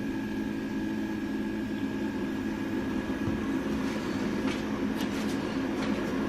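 Keurig coffee maker brewing: its pump runs with a steady hum and a thin whine, with a few short ticks near the end. The machine is working again now that the coffee clogging its needle pipe has been cleared.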